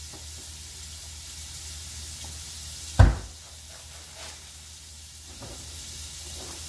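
Chopped bacon and minced garlic sizzling steadily in a pot on a gas burner, with a single sharp thump about three seconds in.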